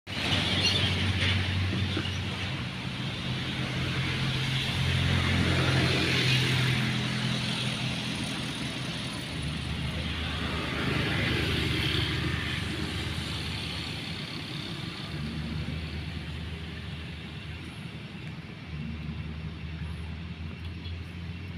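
Motor traffic passing on a road: a steady engine hum and tyre noise that swell and fade, loudest around five to seven seconds in and again around eleven seconds, then easing off.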